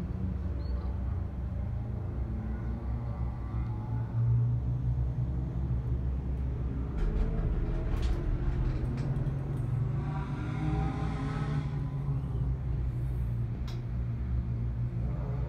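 Steady low rumble inside a moving Awana Skyway gondola cabin as it rides the cable.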